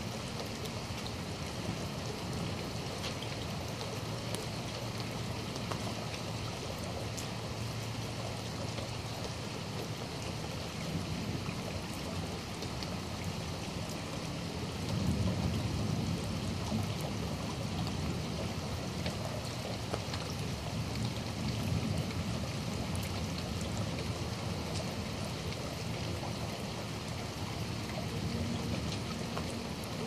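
Steady rain falling, with single drops ticking close by. A low rumble swells about halfway through and stays.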